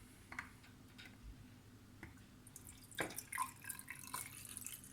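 Faint drips of water in a jar packed with fir cones and filled to the brim, a few scattered at first and thickening into a cluster of small drips and clicks from about three seconds in.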